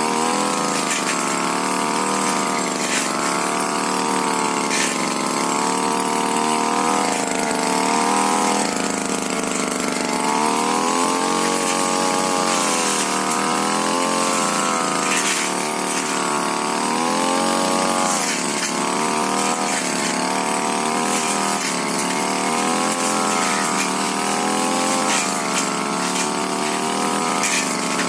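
Tiger TG328 two-stroke brush cutter engine running at high speed. Its pitch keeps dipping and recovering as the blade bites into brush, with a few sharp ticks along the way.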